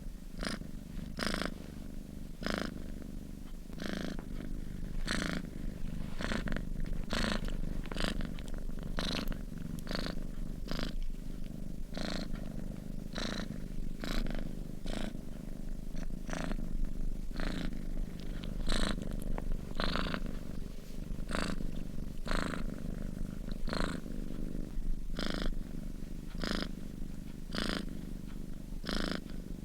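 A sleeping domestic cat purring steadily, the purr pulsing in a regular rhythm about once a second.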